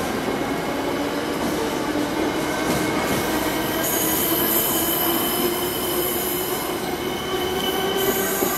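Long empty freight train of container flat wagons rolling past: a steady rumble of wheels on rail with a thin steady whine over it.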